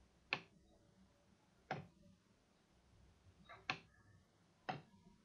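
Computer mouse clicking: four sharp, short clicks roughly a second apart, one of them a quick double click.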